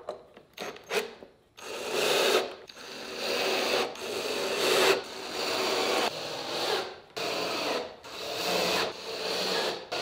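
Cordless drill driving screws through a metal mounting bracket into a wooden cabinet door panel, in a series of short runs of a second or two each with brief pauses between.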